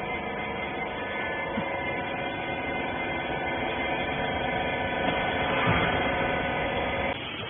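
Hydraulic rag baler's pump and motor running steadily, a hum of several steady tones that cuts off suddenly near the end.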